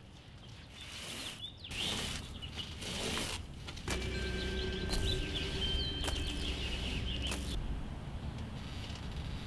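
Outdoor ambience with small birds chirping, and several short rustling scrapes in the first few seconds. A steady low rumble comes in about four seconds in and eases off near the end.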